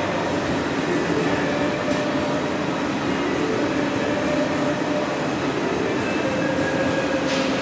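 Steady roar of gas-fired glory holes and burners with exhaust fans running in a glassblowing studio, with a brief hiss near the end.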